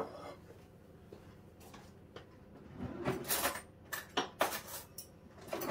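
Kitchen cutlery drawer handled and a knife and fork rattled as they are taken out: a few short knocks and clattering rattles, mostly in the second half.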